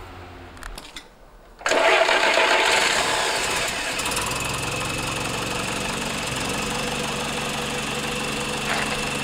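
Freshly rebuilt FSO Warszawa M20 four-cylinder side-valve petrol engine on a test stand catching suddenly just under two seconds in, running fast at first and then settling into a steady idle by about four seconds in. The engine is still cold.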